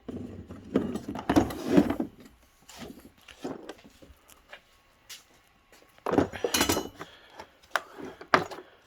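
Metal tools being handled in a tool-cart drawer: clinks and knocks in two busy bunches, at the start and again about six seconds in, with a few single clicks near the end.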